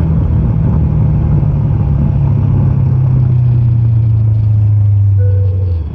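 Motorcycle engine running under way, heard from on the bike, its pitch sinking slowly as the revs drop. The sound falls away briefly just before the end.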